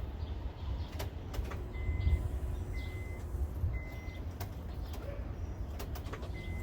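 Scattered sharp clicks and knocks, with a 2007 Honda Civic's electronic warning chime beeping four times, about once a second, over a low rumble.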